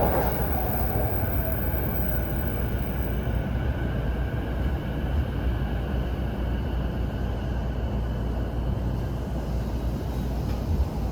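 Inside a JR Chuo Line rapid train (E233 series) running along the track: a steady rumble of wheels and running gear. It is a little louder in the first second, then holds even.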